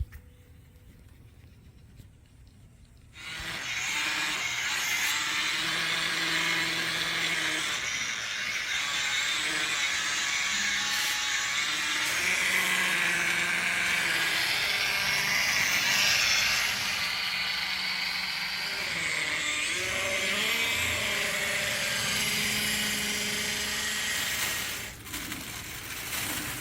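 Electric polisher buffing the freshly wet-sanded clear coat on a car bumper: a steady whirring hiss that starts about three seconds in, its hum shifting in pitch as the pad is pressed and moved, and stops shortly before the end.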